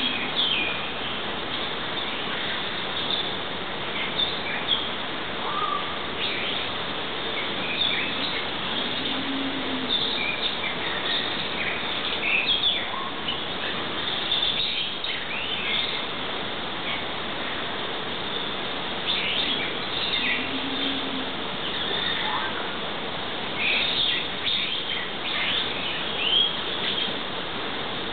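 Many small aviary birds chirping and twittering in short, scattered calls over a steady background hiss, with a brief low hoot twice.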